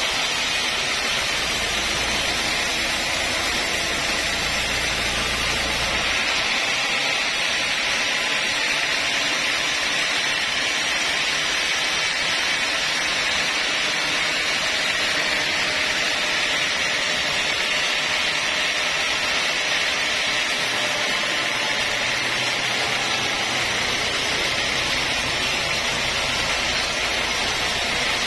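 Sawmill band saw running steadily with a loud, even hiss, sawing through a large log at first; the low rumble of the cut drops away about six seconds in while the blade runs free, and returns toward the end as the log is fed into the blade again.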